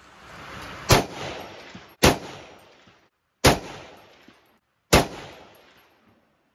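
Four shots from an M1A semi-automatic rifle in .308 / 7.62x51, each a sharp report followed by about a second of echo dying away. The shots come roughly a second and a half apart.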